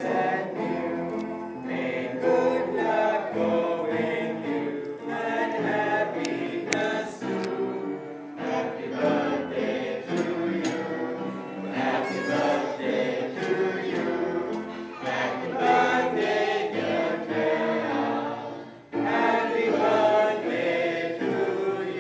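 A group of people singing a birthday song together, many voices at once, with a short break about nineteen seconds in.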